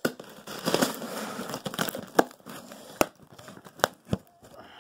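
Parcel packaging crinkling and rustling as it is handled, dense for the first couple of seconds, followed by a few separate sharp knocks and clicks.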